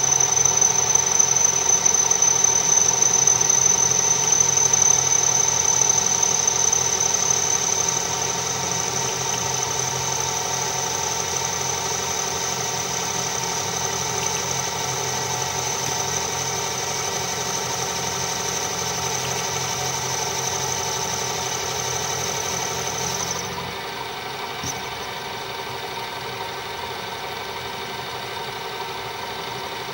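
Metal lathe running while an insert cutting tool faces the spinning brake-drum blank, with a steady high whine from the cut. About 23 seconds in, the whine and a low hum drop out and the lathe runs on more quietly.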